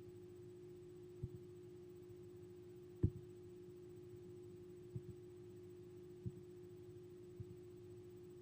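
Quiet room tone: a steady low hum with five or six faint, soft knocks, the loudest about three seconds in.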